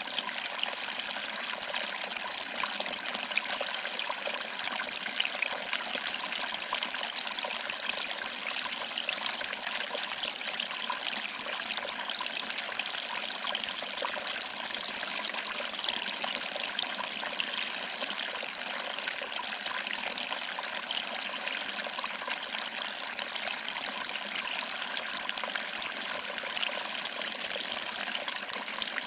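Small waterfall trickling over rocks and splashing into a pool below, a steady even rush of water with fine splashy detail.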